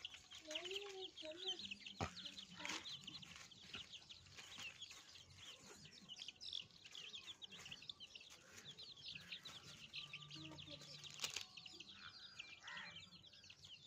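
Faint clucking of Aseel chickens over a constant, dense high-pitched chirping, with a few sharp clicks.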